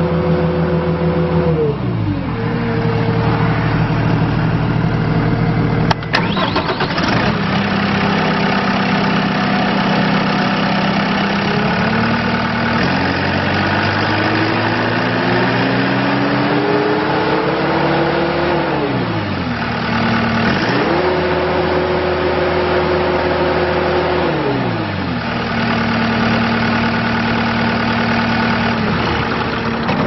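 2014 Case TR270 compact track loader's diesel engine run up and down on the hand throttle. It drops from high speed to idle about two seconds in and idles, with a single click a few seconds later. It then climbs slowly to high speed and falls back, is run up quickly and held high for a few seconds, and drops to idle again near the end.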